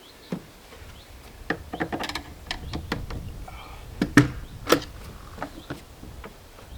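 Clicks and knocks from a newly hung door being worked without its handle: the latch is operated with a makeshift stand-in and the door opened and closed. The two loudest knocks come about four and four and a half seconds in.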